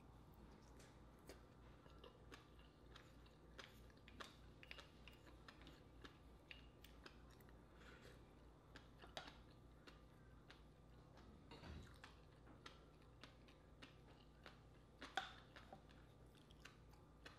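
Faint, close-miked chewing and mouth sounds of a person eating a large oyster, with scattered soft clicks and smacks. The loudest smack comes about fifteen seconds in.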